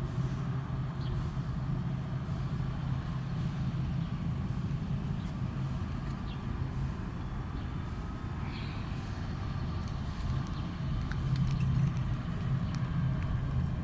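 A 150-kilowatt generator's engine running steadily under a load test, an even low hum.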